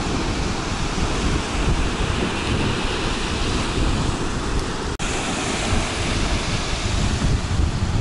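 Black Sea surf washing onto a sandy beach, with wind buffeting the microphone in a low rumble. The sound drops out briefly about five seconds in.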